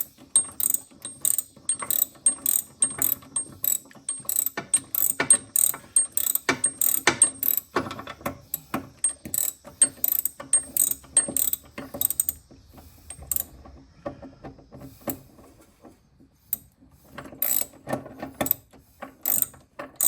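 Socket ratchet wrench clicking in quick runs as a nut is tightened, pausing for a few seconds about two-thirds of the way through before clicking again.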